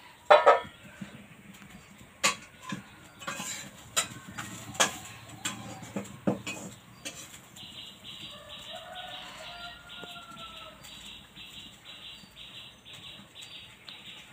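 A few sharp clicks and knocks of cooking utensils at a clay stove, with a short loud call-like sound near the start. From about seven seconds in, a high chirping repeats evenly at about three a second.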